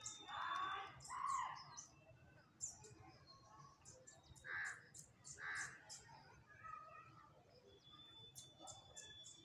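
Crows cawing, twice about a second in and again a couple of times around the middle, over the quick high chirping of small birds throughout.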